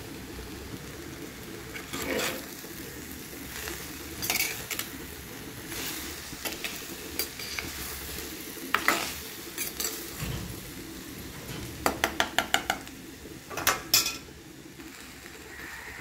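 Metal spoon stirring and scraping vegetables in a clay pot, over a faint sizzle of frying. Scattered scrapes and clicks, then near the end a quick run of about six clicks followed by two louder knocks.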